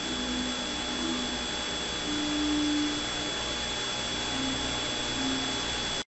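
Homemade multi-disc magnet rotor spinning on its shaft, a steady whirring hiss with one constant high whine, ending abruptly.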